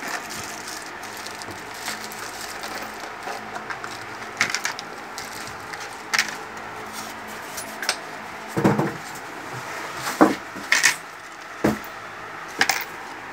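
Plastic packaging crinkling while a small white plastic tool box is opened and handled, with scattered sharp clicks and taps of plastic, most of them in the second half.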